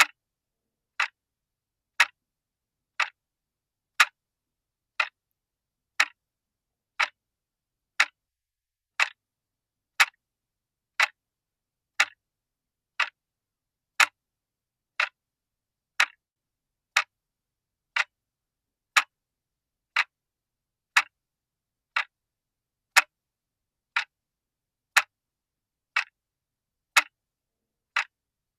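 Clock ticking, one crisp tick every second, evenly spaced with silence between the ticks.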